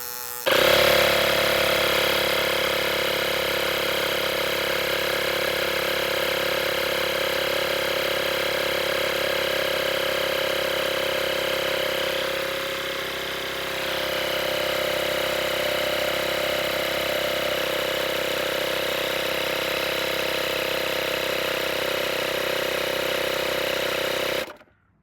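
Tesla tire repair kit's 12-volt electric air compressor switched on and running steadily with a buzzing drone, dipping slightly about halfway, then shut off suddenly near the end.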